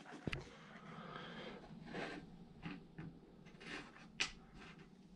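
Light handling noises: soft rustling with a few scattered clicks and taps, and one sharper click a little past four seconds in, as small metal drill bits are laid out on a tabletop.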